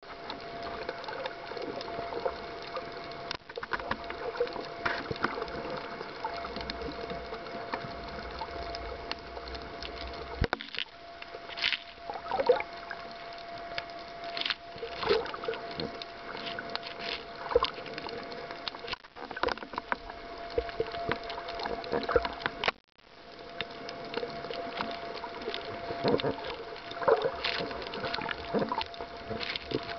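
Muffled underwater sound picked up by a snorkeller's camera: a wash of water noise with scattered crackling clicks and a steady hum. The sound cuts out briefly about three quarters of the way through.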